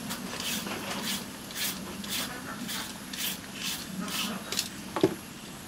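A hand-held julienne peeler scraping down a raw carrot in quick, even strokes, about two a second, shaving it into thin strips. One sharp click about five seconds in.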